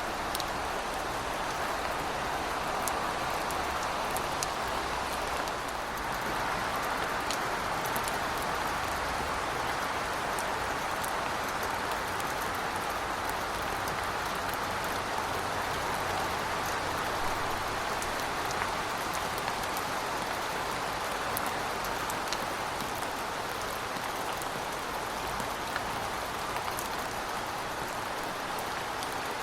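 Heavy rain falling steadily, an even hiss with scattered sharp ticks of individual drops.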